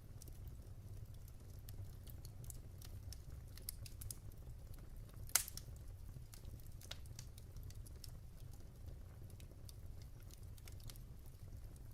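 Wood fire in a fireplace crackling: scattered sharp pops and ticks, one louder pop about five seconds in, over a low steady rumble.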